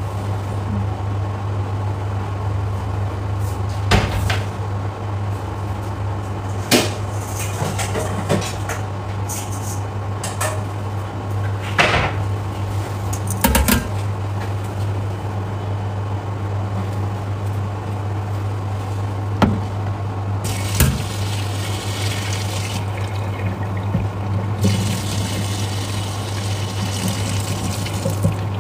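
Kitchen sounds during cooking: a steady low hum with a noisy hiss, broken by a handful of sharp clinks and knocks of cookware and utensils. A brighter hiss comes in about two-thirds of the way through.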